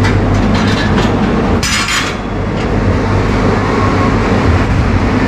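Penang Hill funicular railway car running on its track: a steady rumble with a low hum and faint clicks, and a short hiss about two seconds in.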